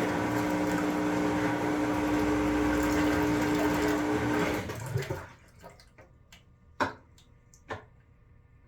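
Maytag MVWP575GW washer's drain pump running with water rushing through it, a steady hum under the noise. The pump cuts off suddenly about halfway through, followed by a few faint clicks and two sharper knocks.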